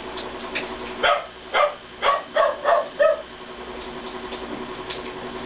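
A dog barking: a quick run of about six short barks over two seconds, starting about a second in.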